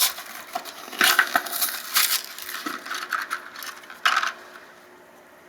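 A small cardboard LEGO minifigure mystery box being opened and its contents handled: bursts of tearing and rustling mixed with small clicks, about a second in, around two seconds, and again near four seconds.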